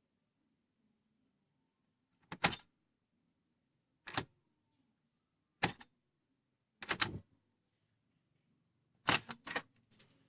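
A series of short clicking rattles, five brief clusters a second or two apart, the last two close together near the end. No engine is heard running or cranking.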